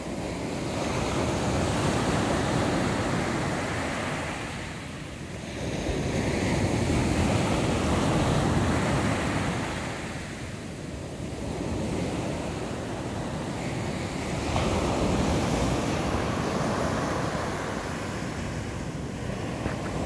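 Rough, storm-churned sea surf after a typhoon, waves breaking and washing up a sandy beach. The rush of water swells and ebbs in surges every four to five seconds.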